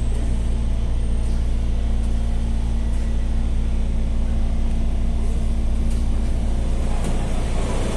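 Madrid Metro Serie 5500 train running at steady speed, heard from inside the car: a loud, even rumble with a constant low hum.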